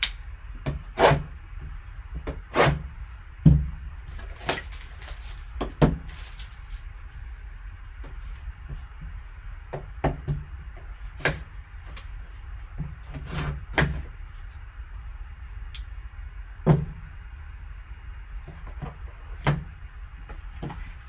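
Shrink wrap on a cardboard trading-card box being slit with a folding knife and torn off, then the box opened: scattered sharp clicks, taps and crinkles of plastic wrap, blade and cardboard, over a steady low hum.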